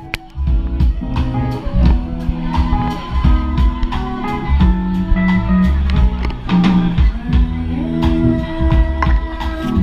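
Live band music: electric guitar playing over electric bass and a drum kit, with regular drum hits.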